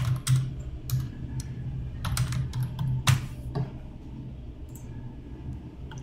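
Typing on a computer keyboard: a run of separate keystroke clicks, thickest in the first three and a half seconds and then thinning out, over a low steady hum.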